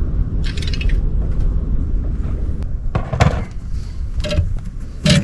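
Steady low wind rumble on the microphone, broken by a few brief splashy, scuffing noises as a hooked pike is brought alongside and landed by hand.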